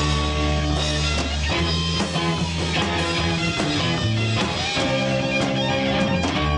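Rock band playing live: electric guitars over a drum kit, loud and steady.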